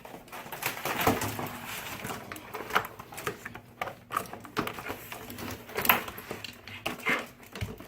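Handling of a plastic action-figure toy and its packaging: scattered clicks, taps and rustling at an irregular pace.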